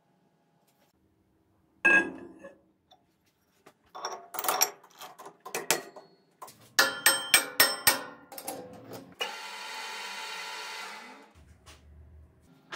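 Metal clanks and clicks from a sheet-metal disk being set into a lathe's chuck and the jaws tightened with a chuck key. A single sharp clank comes about two seconds in, then a run of sharp metallic clicks and knocks, and then about two seconds of steady rushing noise.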